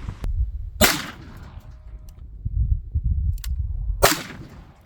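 Two shots from a .460 S&W Magnum revolver firing hot DoubleTap .45 Colt loads, about three seconds apart, each a sharp crack with a short ringing tail.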